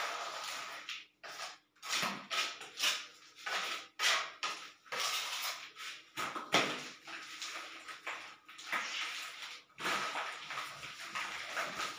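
Steel trowel scraping and spreading cement mortar along the edges and joints of ceramic wall tiles, in irregular strokes.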